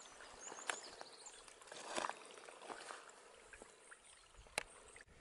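A few separate footsteps on loose stones of a streambed, with a faint trickle of water beneath them.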